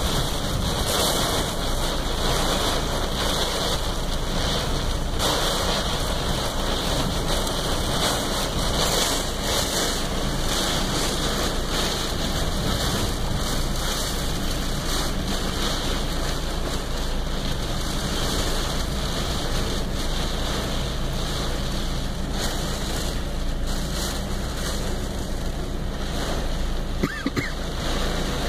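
Heavy rain and wind beating on a car's roof and windows, heard from inside the cabin as a steady rushing noise.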